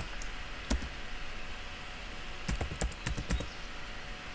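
Typing on a computer keyboard: a couple of separate keystrokes, then a quick run of about eight keys about two and a half seconds in.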